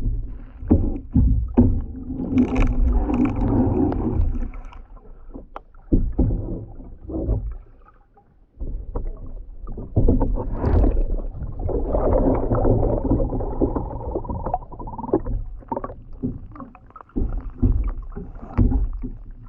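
Kayak on the water: splashing and sloshing in two longer swells, with frequent knocks and thumps against the hull and deep rumbling handling noise.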